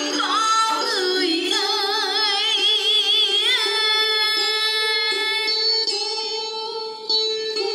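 A singer draws out the end of a Vietnamese song line with wide vibrato over a karaoke backing track. About three and a half seconds in, the voice stops and the backing track plays on in long held tones, growing softer near the end.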